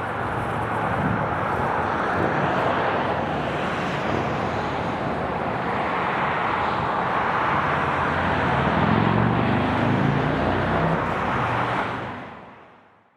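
Road traffic noise: a steady hiss of passing vehicles with some engine rumble, rising a little about two-thirds of the way through, then fading out near the end.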